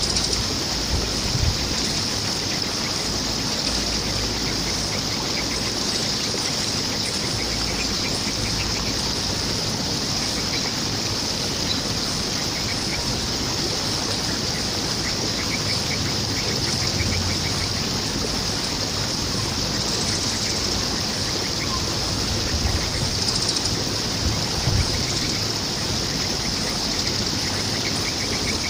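Steady rush of flowing water, a stream or waterfall, under a constant high-pitched insect drone, with faint short bird chirps now and then.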